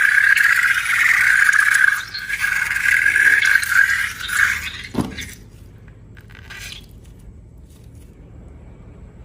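A rubber balloon's neck squealing with a fluttering, steady high tone as air escapes, falling quickly in pitch and stopping about five seconds in.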